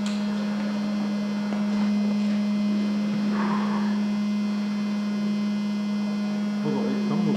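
Anti-fog fan built into airsoft goggles, buzzing with a steady, even hum right at the ears.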